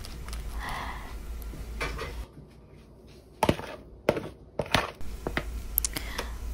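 A rice paddle scraping and pressing cooked rice in a foil aluminium tray, then about five sharp knocks in the second half as a plastic container of rice is tipped and tapped out over the tray.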